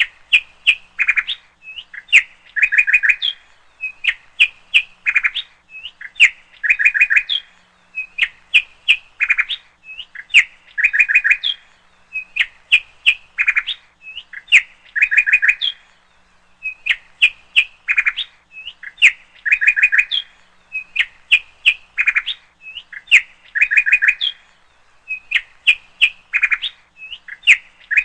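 Bird chirping: a short phrase of quick, high chirps and clicks that repeats very evenly about every two seconds.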